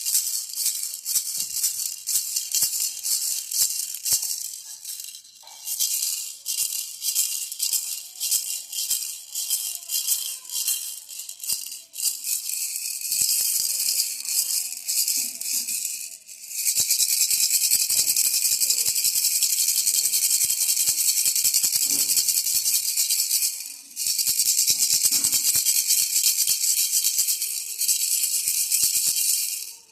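Baby rattle toy being shaken, its loose beads rattling: in uneven bursts at first, then in fast continuous shaking from about halfway, with one brief pause.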